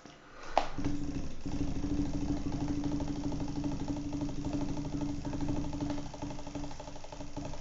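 A small motor running with a fast, even rattling clatter and a steady hum, starting just after a sharp click about half a second in.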